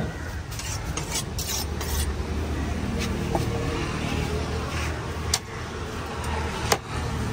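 Knife blade scraping and rasping along a large fish's scaly skin, with two sharp knocks of the blade on the wooden chopping block near the end, over a steady low engine rumble.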